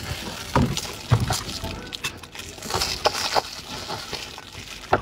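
Handling noise: scattered knocks and rustling, with a longer patch of rustle about three seconds in.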